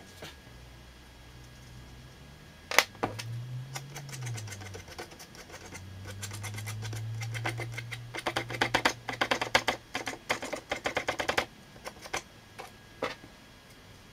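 Fine watercolour brush tapping and scratching against the paper in a quick run of short strokes, with a single sharper click earlier and a low hum that swells and fades behind it.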